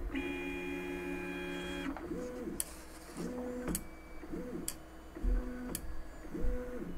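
Stepper motors of an Artillery Sidewinder X1 3D printer homing. A steady whine of several tones for about two seconds, then five short moves, each rising and falling in pitch, about a second apart, with a few sharp clicks among them.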